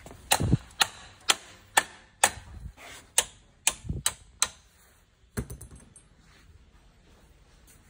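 Kick-start lever of a Honda Lead 100 two-stroke scooter worked by hand, with about ten sharp clacks at roughly two a second, then a few looser rattles about five and a half seconds in. The engine does not fire.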